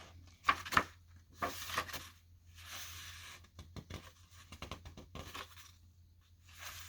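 Paper rustling as the pages of an old hardback book are turned, in two soft swishes with light knocks and clicks of the book being handled.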